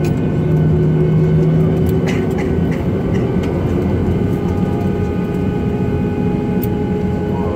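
Cabin noise of a Boeing 737-800 taxiing, its CFM56-7B jet engines at taxi idle: a steady rumble with several steady tones and a few faint clicks. A low hum fades out about two seconds in, and a higher steady tone comes in about halfway through.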